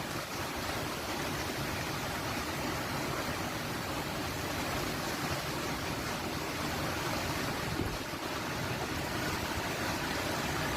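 Heavy storm downpour of rain and hail: a dense, steady rush of noise without a break.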